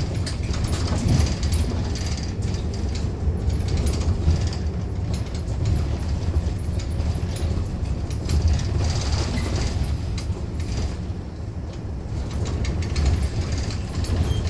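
Inside a moving city bus: steady low rumble of the bus's engine and tyres on the road, with scattered light clicks and rattles from the cabin fittings.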